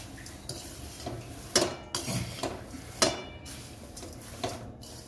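Flat metal spatula stirring crisp roasted thin poha flakes (chivda) in a kadhai: rustling of the dry flakes, with the spatula scraping and knocking against the pan. The two loudest knocks come about one and a half and three seconds in.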